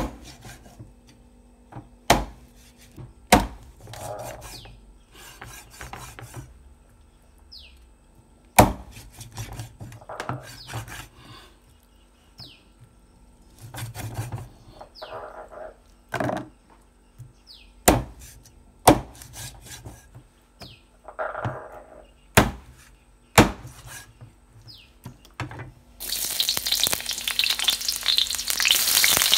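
A cleaver chopping raw chicken on a thick round wooden chopping block, in sharp single chops a second or more apart. Near the end, chopped onion and garlic start sizzling loudly in hot oil in a wok.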